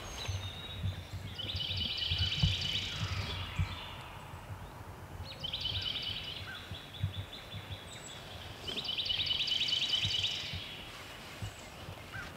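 A small songbird singing a rapid, even trill about a second and a half long, three times, a few seconds apart. Under it are soft low thumps, the loudest about two and a half seconds in, like footfalls on the forest floor.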